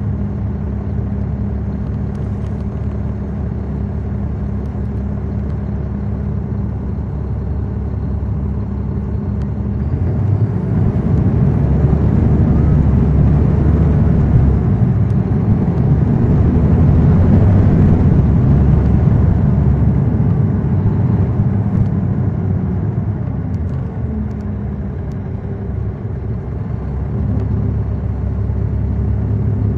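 Caterpillar C13 diesel of a NABI 40-SFW transit bus, heard from the rear seats inside the bus. It runs at a steady hum, then about ten seconds in grows louder and fuller for some ten seconds as it works under load, eases off past twenty seconds, and picks up again near the end. The howl these buses are known for is missing.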